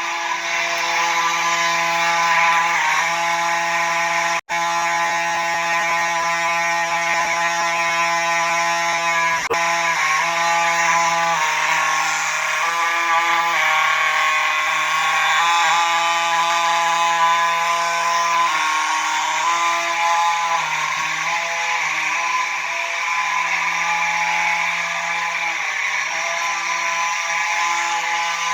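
Simplex fire alarm horns, a 4903-9220 and a 4901-9805, sounding together in one steady, buzzy horn tone, with a momentary dropout about four seconds in. One horn is off: the owner says it was acting a little strange.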